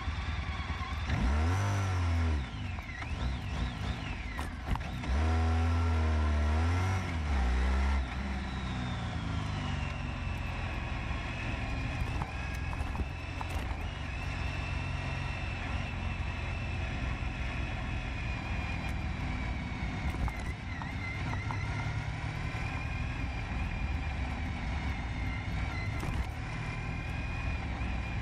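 Honda ST1300 Pan European's V4 engine pulling away from a standstill and accelerating, with two loud, low, distorted surges of rising and falling pitch in the first eight seconds. After that it runs steadily at town speed.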